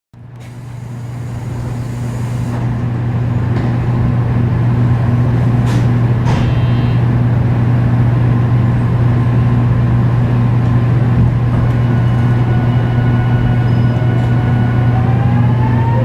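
Inside a JR Kyushu 813 series 200 electric multiple unit motor car: a steady low hum, with two short clicks about six seconds in. Near the end, the Toshiba GTO VVVF inverter's tones begin to rise in pitch as the train accelerates.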